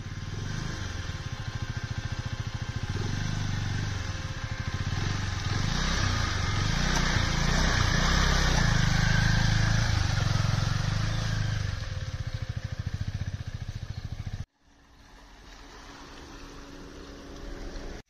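KTM RC 390 motorcycle's single-cylinder engine running at low speed as the bike rides through a muddy, water-filled track, louder through the middle. A sudden cut about three quarters through drops it to a quieter engine sound that slowly grows again.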